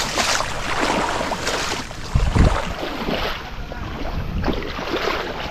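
Legs wading through thigh-deep water, with repeated sloshing splashes, one with each stride, and a heavier low thump about two seconds in.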